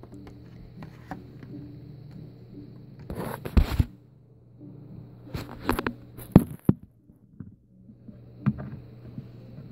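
Rustling and knocking of small plastic hand sanitizer bottles and a cord being handled close to the microphone, over a low steady hum. There are a few loud rustles in the middle, and the sound cuts out briefly twice.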